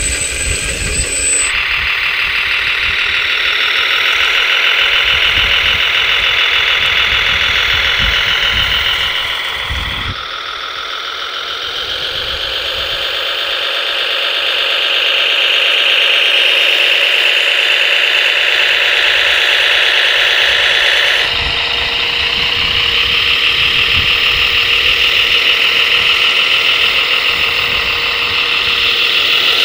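Radio-controlled scale construction models running: a steady, high, buzzing engine-like drone and motor whine with little low end. It changes abruptly about 10 and 21 seconds in as a different model is heard.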